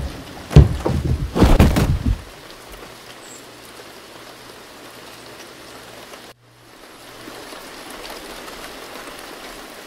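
A person falling down carpeted stairs: a run of heavy thuds over about a second and a half, the first the loudest. Then a steady hiss that drops out briefly about six seconds in.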